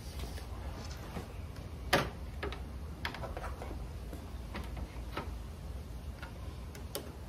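Scattered light plastic clicks and taps from a plastic engine-bay trim panel being handled and fitted back into place, about half a dozen, the sharpest about two seconds in, over a steady low rumble.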